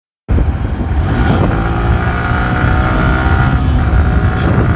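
Yamaha motorcycle running while being ridden: a steady engine hum over a heavy low rumble, starting abruptly just after the beginning.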